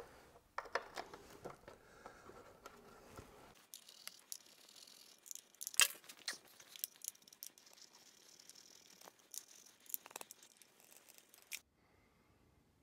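Hand driver fastening the bolts that hold a plastic motorcycle front fender to the lower triple clamp: scattered light clicks of the tool on the bolts and rattling of the plastic fender, with one sharper click about six seconds in. It stops shortly before the end.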